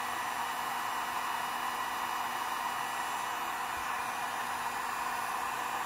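Parkside PHLGD 2000 C4 digital hot air gun running in work mode: a steady, even rush of blown air from its fan, with a faint steady hum under it.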